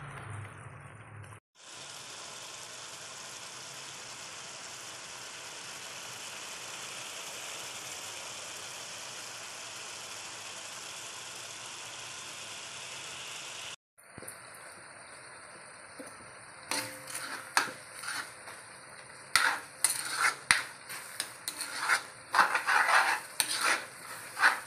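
Coconut milk with shrimp paste and chilies boiling hard in a metal wok: a steady hiss of bubbling. About halfway through, the hiss cuts off, and after a short quieter stretch a metal spatula starts stirring and scraping against the wok in quick, irregular strokes over a sizzle.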